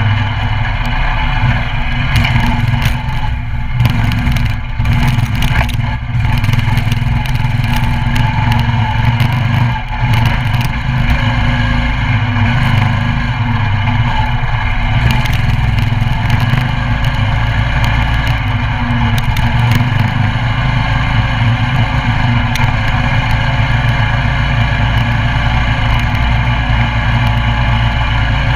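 Coleman CT200U mini bike's 196cc single-cylinder four-stroke engine running steadily at a fairly even throttle while being ridden, with some rattling clatter a few seconds in.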